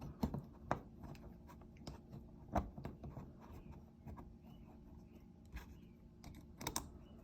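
Faint, scattered clicks and light taps of small parts being handled as screws are started by hand into a tensegrity table's arm, a few sharper knocks among them.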